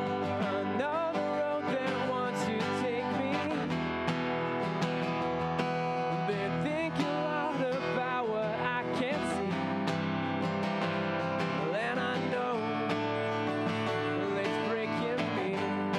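A man singing live while strumming an acoustic guitar, with a steady strummed rhythm under the sung melody.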